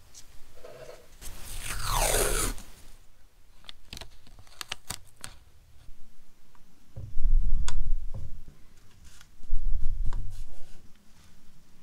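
Masking tape pulled off with a drawn-out, falling rip, then a few light clicks, then paper and tape rubbing and crinkling as they are pressed onto a small diecast car body.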